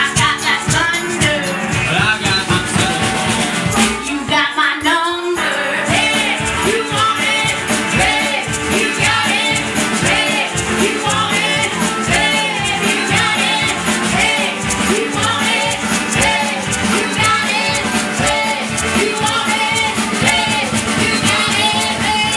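Live skiffle band with a woman singing lead over resonator guitar, banjo and drums. About four seconds in, the band drops out for a moment under the voice, then comes back in.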